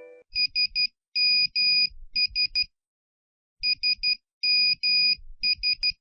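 Nokia's classic text-message alert: high electronic beeps spelling 'SMS' in Morse code (three short, two long, three short), played twice with a short pause between.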